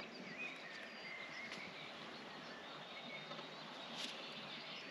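Faint outdoor ambience with distant birds chirping, short high calls scattered throughout, and a couple of soft ticks.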